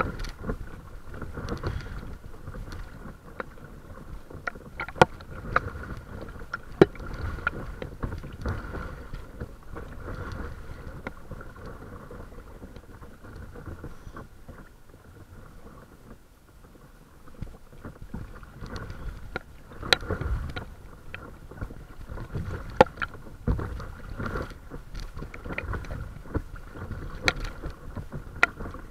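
Water slapping and splashing against the bow of a small paddled boat under way, with irregular sharp splashes over a steady wash of moving water. The water noise eases off for a few seconds midway, then picks up again.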